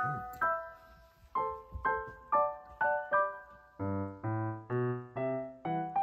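Background piano music: a slow melody of single struck notes, about two a second, each fading away, with lower notes joining from about four seconds in.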